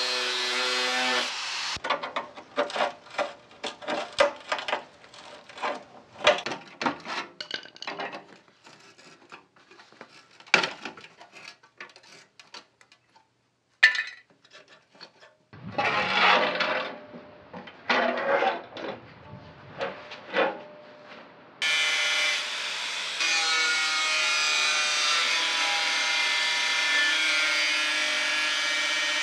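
Angle grinder with a cut-off disc cutting through the rusted sheet steel of a Series 1 Land Rover front grille panel. It whines steadily at the start and again through the last seven seconds or so. In between comes a spell of sharp knocks and taps on the metal, then a few short bursts of noise.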